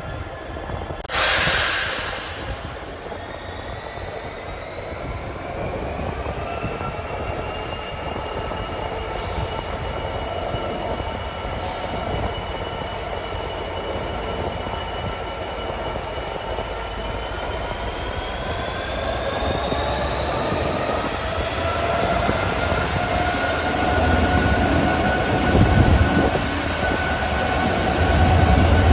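GBRf Class 66 diesel-electric locomotive's EMD two-stroke V12 engine and traction motors powering up as it pulls away. Its whine rises in pitch in two steps and grows louder toward the end. There is a short burst of noise about a second in.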